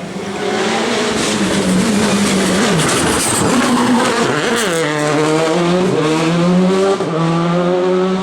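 Rally car engine revving hard, its pitch rising and falling with the throttle. About four and a half seconds in the revs drop sharply, then climb steadily again.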